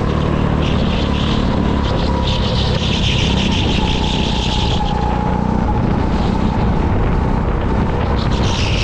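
Go-kart engine running hard at speed, heard from the driver's seat, its pitch shifting a little with throttle, with a higher hiss coming in for a few seconds near the start and again near the end.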